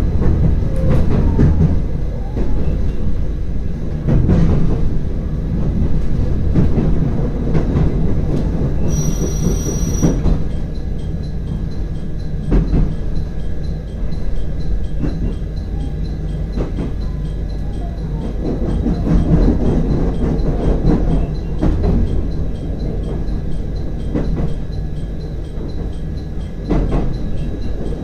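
Train noise from a JR Hakodate Line local train: a steady low rumble with irregular clacks, and a short high beep about nine seconds in.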